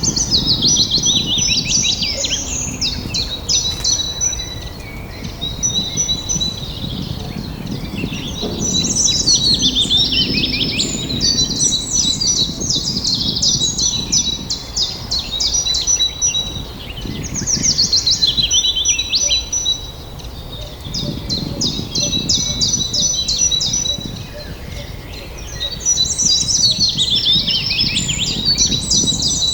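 Several songbirds singing at once in a continuous chorus of rapid chirps and fast trills, in waves that swell and ease every few seconds, over a low steady background rumble.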